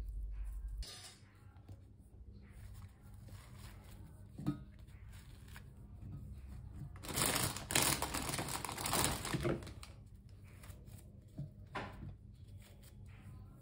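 Slices of bread being torn apart by hand into a steel mixer-grinder jar, with rustling and crinkling. The rustling is loudest for a couple of seconds in the middle.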